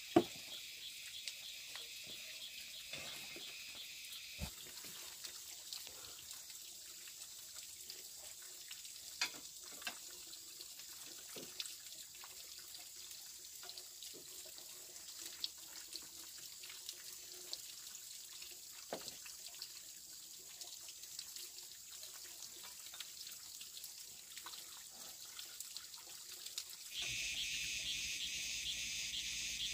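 Steady hiss of water trickling, with scattered light clicks and knocks. In the last few seconds it switches suddenly to a pulsing insect chorus of crickets.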